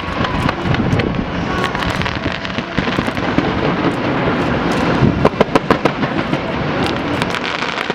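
Fireworks going off in a continuous barrage of bangs and pops, with a quick run of crackling reports about five seconds in.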